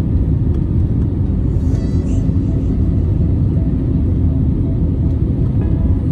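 Steady low rumble of engine and airflow noise heard inside an AirAsia airliner's cabin during its descent on approach to landing.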